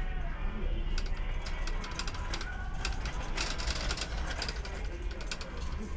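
Shopping cart rattling as it is pushed, a rapid, irregular clatter of small clicks over a low steady hum.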